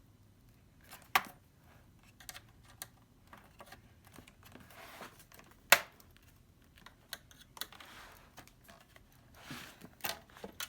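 Scattered plastic clicks and snaps from an Alienware laptop's bottom panel being pried off its clips, with light scraping between. The sharpest snap comes a little over halfway, another about a second in.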